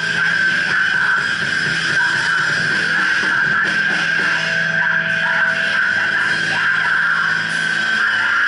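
Loud, distorted live band music with electric guitar, a dense, steady wall of sound with no pauses.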